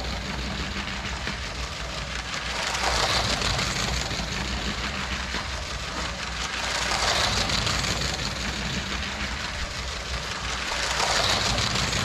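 LEGO High-Speed Passenger Train (set 60051) running laps on plastic track, its battery-powered electric motor whirring and its wheels rattling over the rails. The sound swells three times, about every four seconds, as the train comes round past the camera.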